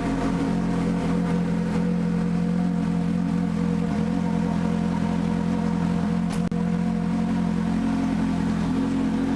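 Ferrari 458 Challenge's 4.5-litre V8 idling steadily, its pitch holding level with no revving.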